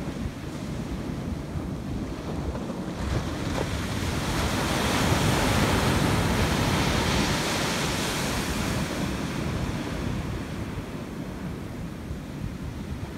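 Ocean surf breaking on a sandy beach: a wave crashes and washes up the shore, its hiss swelling about three seconds in and fading away again near ten seconds. Wind buffets the microphone throughout.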